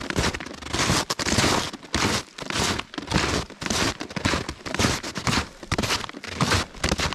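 Footsteps crunching through packed snow close to the microphone, a steady walking pace of about two steps a second.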